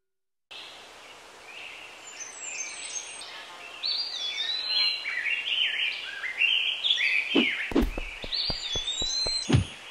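Birdsong ambience: many short chirps and whistled up-and-down glides over a soft outdoor background. In the last two seconds there is a run of low thumps.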